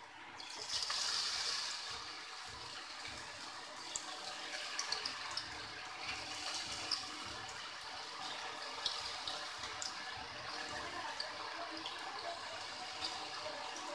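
Pieces of colocasia-leaf pakodi dropped into hot oil in a kadhai, setting off a deep-frying sizzle that swells sharply about a second in, then goes on steadily with scattered pops and crackles.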